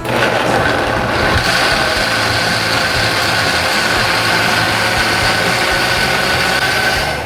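Countertop blender motor running at full speed, chopping ginger, cucumber, aloe vera and lemon in water, with a steady high whine over the churning. It starts suddenly and cuts off after about seven seconds.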